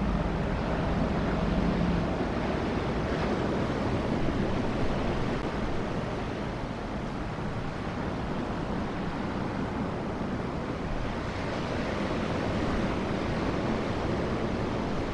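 Surf breaking on the beach below, with wind on the microphone: an even, steady rush. A faint low hum from the passing train fades out in the first two seconds.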